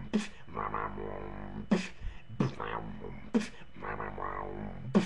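Dubstep beatboxing: a buzzing, pitched vocal bass 'wob' that the mouth shapes and shifts, broken by about five sharp snare-like hits at uneven spacing.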